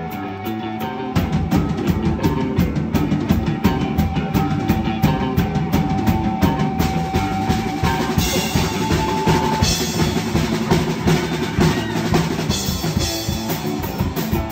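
Live rock band playing electric guitars and a drum kit. The full kit comes in about a second in over a held note, and the cymbals grow louder about halfway through.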